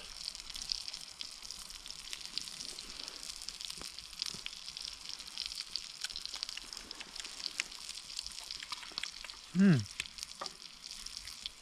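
Beef patties sizzling and crackling in a frying pan, a steady hiss with many small pops as they finish cooking. A brief low voice sound breaks in near the end.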